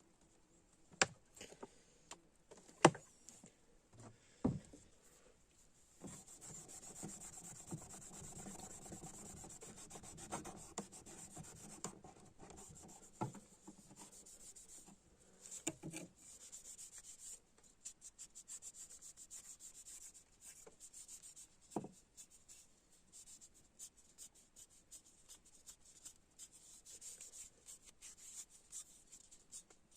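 A few sharp clicks and knocks, then steady scratchy rubbing by hand from about six seconds in, with short pauses and an occasional knock.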